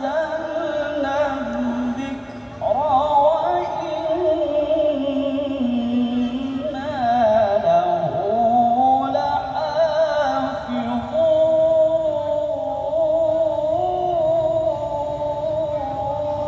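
A male qari chanting Quran recitation in the melodic tilawah style over a PA system: long held notes with wavering ornaments, broken by a short breath pause about two and a half seconds in.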